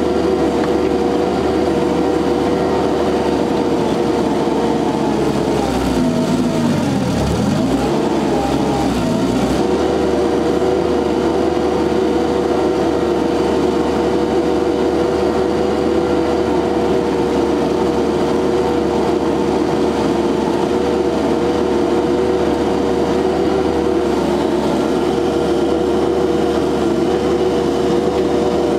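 SCL1000 compact loader's engine running steadily at working revs. About six seconds in, its pitch sags over a couple of seconds and then recovers, as the engine lugs under a digging load.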